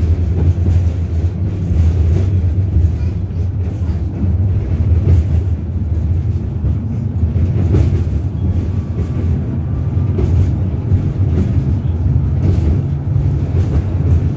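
A 71-623-02 tram running along the track, heard from inside the passenger car: a steady low rumble with a few faint clacks.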